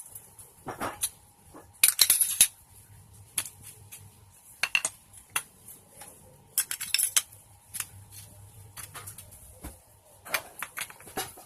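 Hand tools and small metal parts clinking and knocking in irregular sharp strikes, the loudest cluster about two seconds in.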